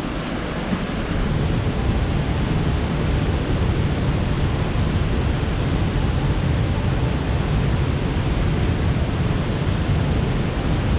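Large waterfall's falling water: a very loud, steady rush, heaviest in the low end, rising a little about a second in.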